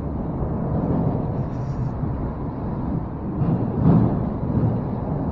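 Wind buffeting the microphone: a steady low rumble with a gust about four seconds in.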